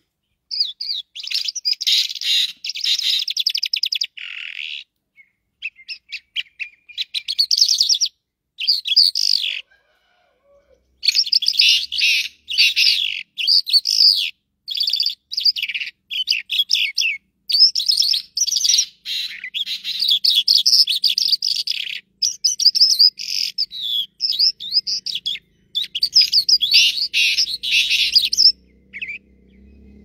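A caged lark singing a long, high-pitched song of rapid, varied chirping phrases separated by short pauses. The longest pause comes around ten seconds in, and the song stops shortly before the end.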